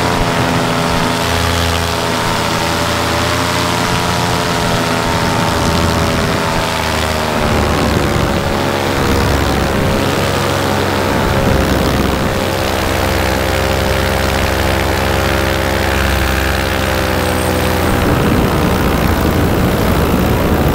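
Powered paraglider's two-stroke Vittorazi Moster 185 engine and propeller running steadily at cruise power in flight. The engine note eases down slightly about seven seconds in and holds there until near the end.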